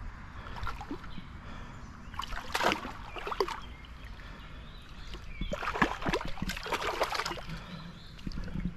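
Water splashing in two bouts, about two seconds in and again around five to seven seconds in: a hooked carp thrashing at the surface as it is played in close on a fly rod.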